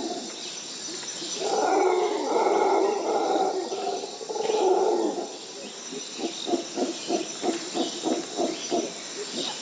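Howler monkeys calling: two long roars, then a run of rapid grunts at about four a second, over a steady high insect drone.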